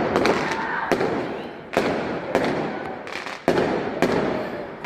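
Fireworks going off in quick succession: a string of sharp bangs, about one every half second, each followed by a fading rumble of echo. The loudest bang comes right at the start.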